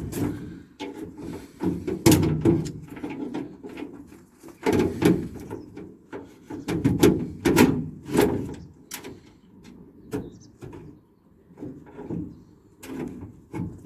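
Irregular clicks, knocks and rattles of needle-nose pliers and small lock parts being worked inside a van's rear door, fitting the door lock's wire and clip back into place.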